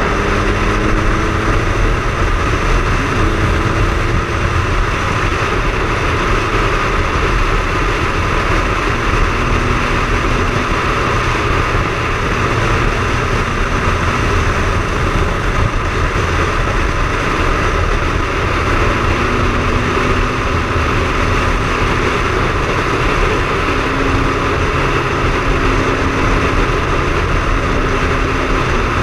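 Triumph Speed Triple's inline three-cylinder engine running at a steady pace while riding, under a steady, loud rush of noise.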